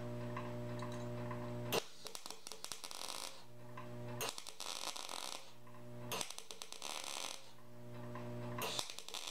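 Lincoln SP-250 MIG welder laying short tack welds with .023 wire on sheet-metal test pieces: four bursts of crackling arc, each about a second long, with a steady hum in between. The tacks are still running a little cold at this voltage setting.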